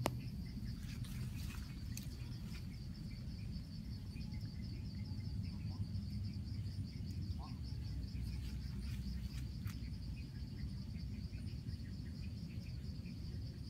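A steady, rapidly pulsing high trill of an insect, over a low steady rumble of outdoor background noise, with a few faint clicks.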